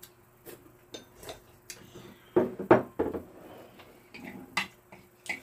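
Spoon and chopsticks clinking and scraping against ceramic bowls and plates during a meal, with a few louder knocks a little past halfway.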